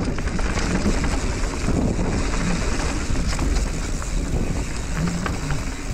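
Wind buffeting the microphone, mixed with the rumble of mountain bike tyres rolling fast down a loose dirt singletrack.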